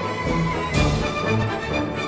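Background music with sustained notes and a brief bright swell about a second in.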